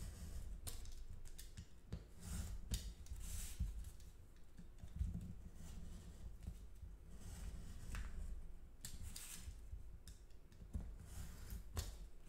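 Craft-knife (X-Acto) blade cutting through layers of folded paper on a cutting mat, in a series of short cutting strokes at uneven intervals, with light handling noise from the paper.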